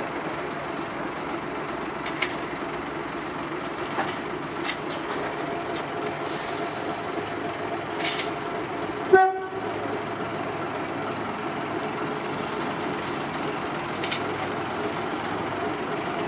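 Small diesel shunting locomotive running slowly with its engine at a steady hum, with a few light clanks. About nine seconds in comes one short, loud toot of its horn.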